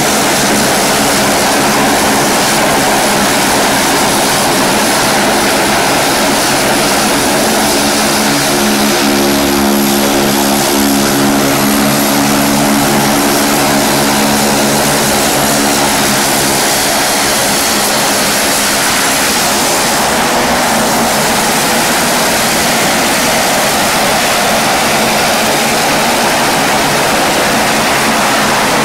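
Saab 340 turboprop's two General Electric CT7 engines running with propellers turning as it taxis: a loud steady propeller drone with a layered hum that swells through the middle, over a thin high whine.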